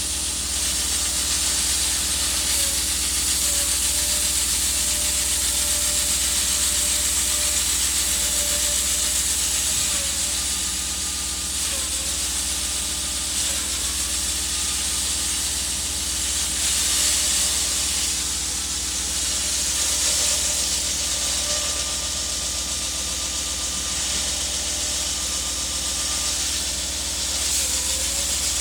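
Concrete saw running and cutting through thick concrete: a steady engine hum under a loud hissing cut noise, with a faint blade tone that dips in pitch now and then as the load changes.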